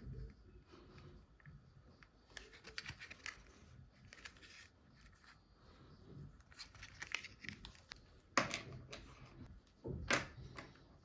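Toy packaging being unwrapped by hand: plastic and paper crinkling and tearing in short irregular bursts, with two sharper, louder rips in the second half.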